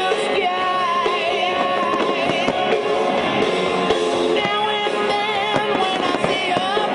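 Loud music with a singing voice, carried over a fireworks show's sound system, with a few firework bangs beneath it.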